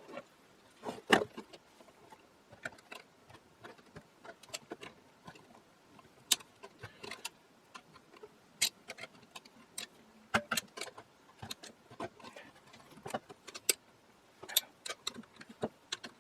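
Irregular clicks, taps and light clatter of a screwdriver, small screws and metal parts being handled while an antique radio receiver is taken apart. The loudest knock comes about a second in.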